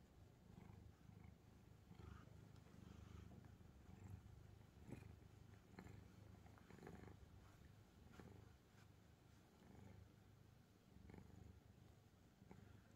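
Calico cat purring steadily and faintly while being stroked, a low, even rumble throughout, with a few faint rustles.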